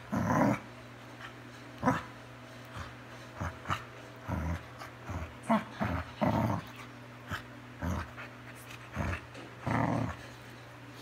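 Two dogs play-wrestling, giving a string of short play growls and grunts, the longer ones near the start, about six seconds in and near the end.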